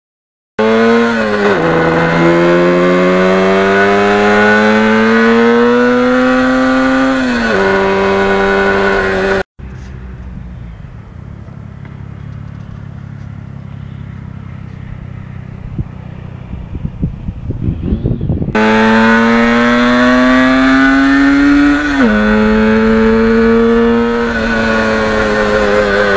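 1977 Yamaha RD400's two-stroke parallel-twin engine pulling hard, its pitch climbing and then dropping sharply at each upshift, twice in the first run. It cuts to a quieter stretch of steady rushing noise that ends in a flurry of crackles, then the engine comes back, climbing through another upshift.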